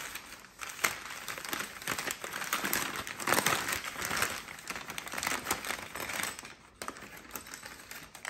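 White packing wrap crinkling and rustling as it is pulled off a small scooter brake, with many small crackles.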